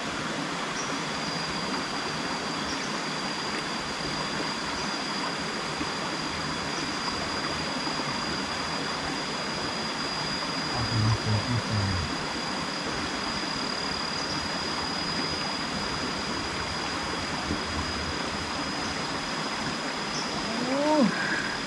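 Steady rush of a small rocky river's flowing water, with a thin, steady high-pitched tone running through it.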